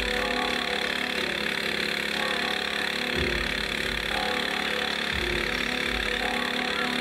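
A small engine running steadily, with a low thud about every two seconds.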